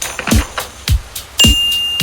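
Upbeat background music with a steady kick-drum beat, just under two beats a second, and a bright ding that starts about one and a half seconds in and rings on.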